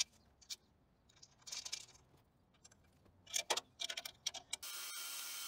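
Light metallic clicks and rattles of an Allen key and bolt being fitted and turned in a steel bracket, in short scattered bursts. Near the end they give way to a steady faint hiss.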